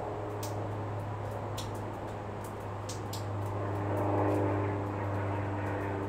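Outdoor city ambience: a steady low hum, with a distant engine passing that swells to its loudest about four seconds in. A few short, high ticks are scattered through it.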